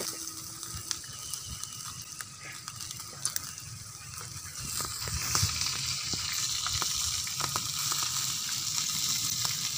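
Food frying in hot oil in a pan: a steady sizzle with scattered small pops and crackles, growing louder about five seconds in.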